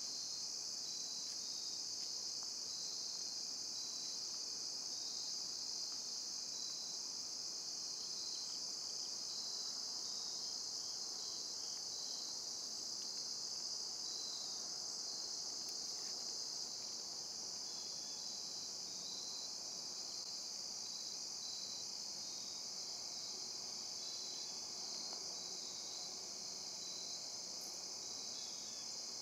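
Steady chorus of crickets, a continuous high-pitched chirring.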